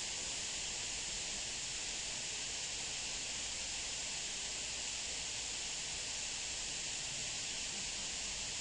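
Steady hiss with nothing else heard: the background noise floor of the recording.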